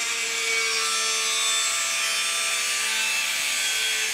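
Grinder's cut-off disc slicing through a 2 mm fibreglass (GFK) plate: a steady, high-pitched grinding with a faint whine under it.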